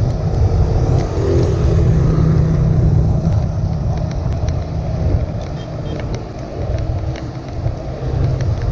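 Road traffic on a busy city road, car engines and tyres, heard from a moving bicycle as a heavy low rumble that eases a little past the middle and builds again near the end.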